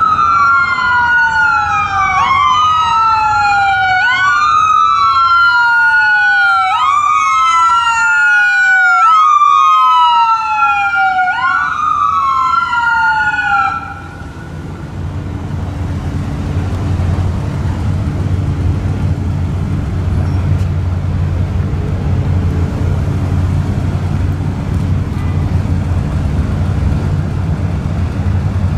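Ambulance siren wailing, its pitch sweeping up and down about every two and a half seconds with a second sweep overlapping it, until it cuts off suddenly about halfway through. After that there is a steady low rumble of vehicle engines and traffic.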